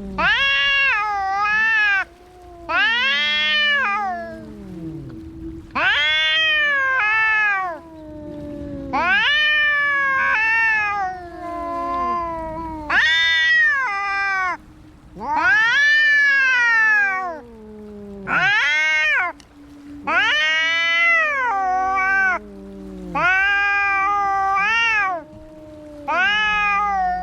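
Cats yowling in a fight: a string of drawn-out wailing calls about every two seconds, each rising and then falling in pitch, with lower yowls overlapping some of them. A faint steady low hum runs underneath.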